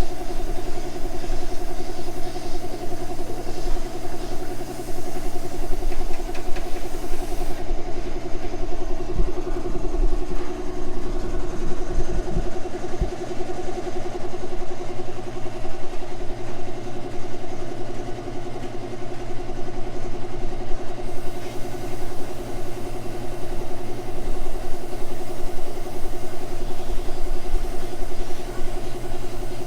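Electric air compressor running steadily with a constant hum while it feeds an airbrush spray gun laying on prime coat. A few dull low thumps come about ten to thirteen seconds in.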